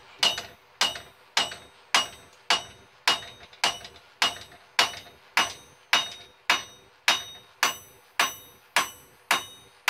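Steady hand-hammer blows on hot steel at the anvil, about two a second, each with a short metallic ring: a blacksmith hammering a small piece straight.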